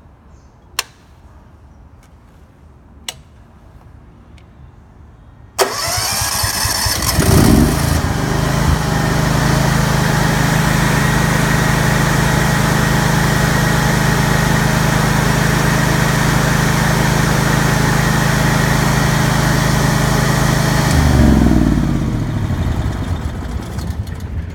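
Honda EM10000 petrol generator remote-started by its automatic controller. Two switch clicks come a couple of seconds apart, then the electric starter cranks about five seconds in and the engine catches within a couple of seconds. It runs steadily, and near the end its pitch falls away as it winds down.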